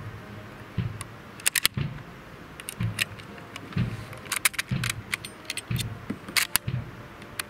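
Metallic clicks and rattles of a Lee-Enfield No. 4 Mk I* rifle being loaded: the bolt is worked and a charger of .303 cartridges is pushed down into the magazine. There are several separate clicks and clatters, the loudest about halfway through.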